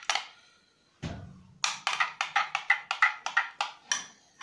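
A brief stretch of dead silence, then a short percussive music piece: a low steady tone under sharp wood-block clicks at about four a second, fading out near the end.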